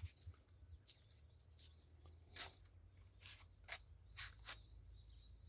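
Near silence with about seven faint, short clicks and scuffs scattered through it, most of them in the second half, over a low steady hum.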